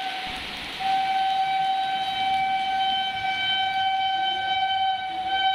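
Locomotive horn of an approaching express train sounding one long, unbroken blast, louder from about a second in. It is the warning horn of a train about to run through the station at speed without stopping.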